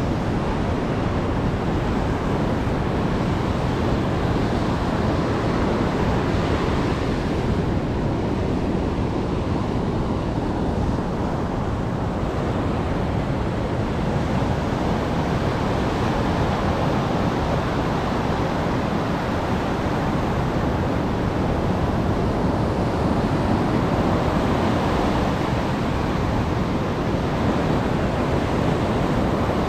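Heavy surf breaking on a beach in rough seas: a steady, loud wash of waves, with wind noise on the microphone.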